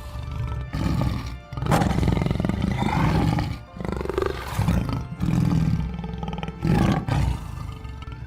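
Tiger roaring and growling in a string of loud, rough calls about a second long, with short breaks between them.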